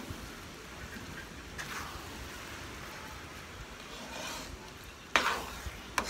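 Metal spoon stirring a bubbling, sizzling pan of sweetened jackfruit and glutinous rice, with a sharp clank of the spoon against the pan about five seconds in and a lighter one just before the end.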